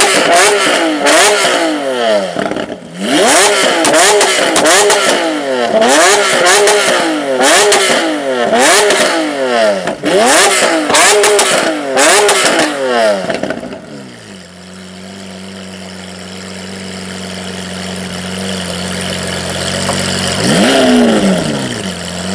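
Lamborghini Aventador V12 with an Armytrix exhaust, blipped hard about once a second for some thirteen seconds. Each rev falls away into sharp cracks and bangs from the exhaust as it shoots flames. It then settles to a steady idle, with one more rev near the end.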